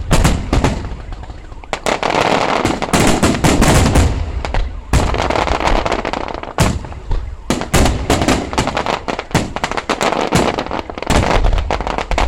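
Fireworks display going off: a dense, rapid string of bangs and crackling, many reports a second with brief gaps between volleys.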